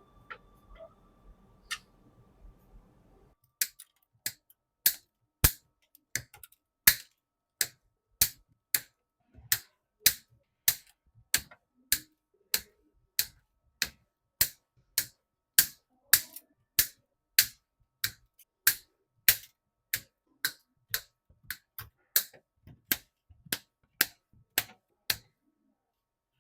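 A series of sharp, separate clicks, about one and a half a second and slightly uneven, starting a few seconds in and stopping shortly before the end.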